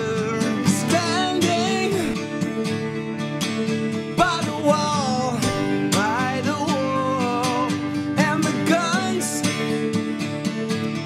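Acoustic guitars strummed steadily, with a male voice singing long gliding phrases over them without clear words.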